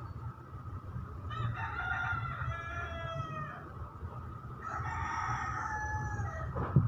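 A rooster crowing twice, each crow about two seconds long, then a sharp thump near the end.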